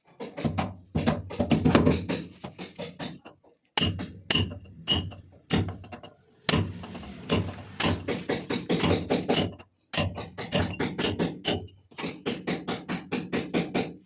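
Background music with a steady percussive beat, broken by abrupt cuts and restarts every few seconds.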